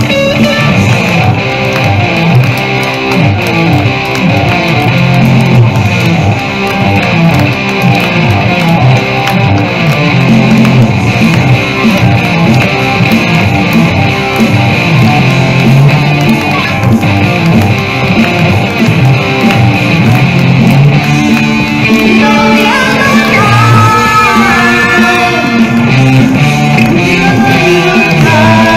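Loud live rock music: an electric guitar played through an amplifier over a steady low bass part, with a singing voice joining toward the end.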